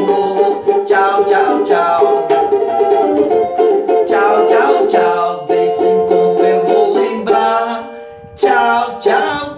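Ukulele strummed in a steady rhythm, accompanying a children's goodbye song, with a short drop in loudness near the end.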